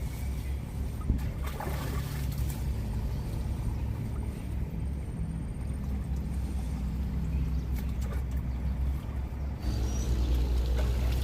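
Boat engine running steadily with a low, even drone, and a single sharp knock about a second in.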